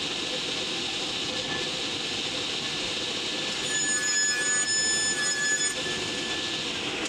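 Table saw running, its blade first spinning free with a steady whine. From about three and a half to nearly six seconds in it rips a utile plank to width, turning louder and shriller as the blade cuts the wood.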